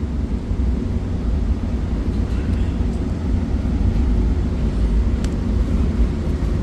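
Trane gas furnace running: a steady low rumble of the burner and blower, with a faint click about five seconds in.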